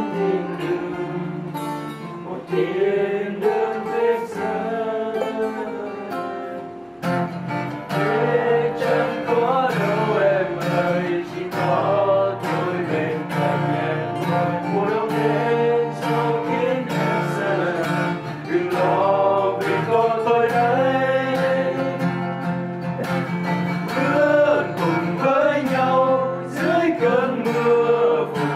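Several acoustic guitars strummed together while men sing a Vietnamese song along with them. The playing dips briefly in loudness about a quarter of the way in.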